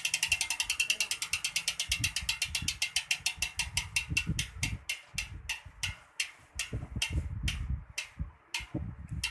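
Sagmit V12 bicycle rear hub freewheeling: a fast run of pawl clicks that slows steadily as the wheel spins down, ending in a few widely spaced clicks that stop near the end.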